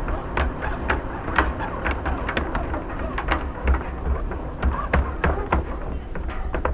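A string of irregular sharp clicks and knocks, a few a second, over a steady low rumble.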